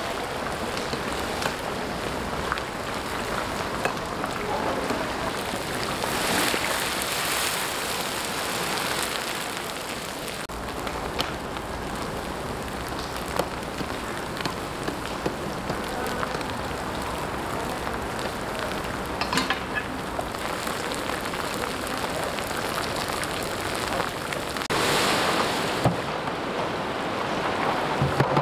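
Meat sizzling and frying in hot oil in a huge kazan for plov: a steady crackling hiss that swells louder twice, with occasional sharp clicks of the steel skimmer against the pot.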